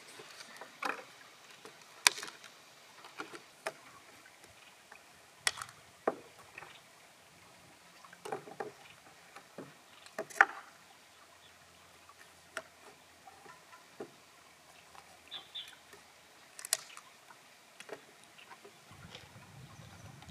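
Irregular sharp clicks, taps and scrapes of a knife working open freshwater mussel shells and shells knocking onto a wooden board, with the loudest knocks about two and ten seconds in.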